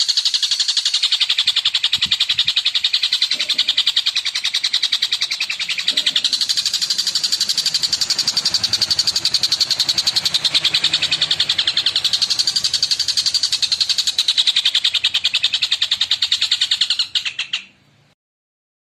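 Long-tailed shrike (cendet) singing a continuous, very rapid chattering song of high notes. The song stops abruptly near the end.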